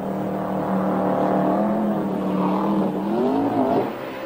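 Powerboat engine running at high revs with a steady pitch, then swooping up sharply in pitch about three seconds in, over the rush of churning water.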